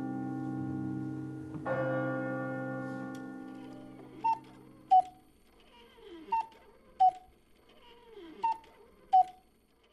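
Closing music: a sustained chord dies away, with a second chord struck about a second and a half in. Then a slow tick-tock of sharp pitched ticks, three pairs about two seconds apart.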